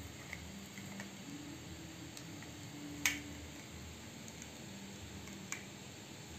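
A plastic faucet clamp being worked onto a stainless steel wire sponge rack: a few light ticks, a sharp click about three seconds in and a smaller click near the end, over a faint steady hum.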